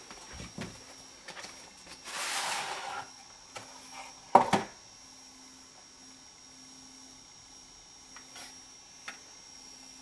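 VCR mechanism handling a VHS tape: scattered mechanical clicks, a one-second rush of hiss about two seconds in, and a sharp clunk about four and a half seconds in, over a faint steady high whine.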